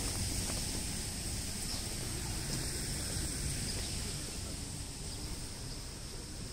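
Outdoor ambience: a low wind rumble on the phone's microphone under a steady high-pitched hiss, with no distinct events.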